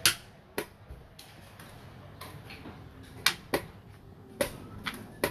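Xiangqi pieces clicking against each other and on a wooden board as a player picks them up and sets them down: about ten sharp, irregularly spaced clacks, the loudest at the very start and about three seconds in.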